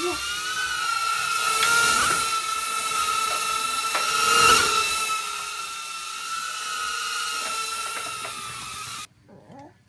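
Tiny Whoop Inductrix FPV micro quadcopter's brushed motors and propellers whining high and steady in flight, the pitch wavering slightly, then cutting off suddenly about nine seconds in.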